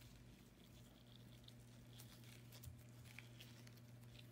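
Near silence: faint soft rustles and ticks of gloved fingers folding and tucking pie dough under the rim of a pie pan, over a low steady hum.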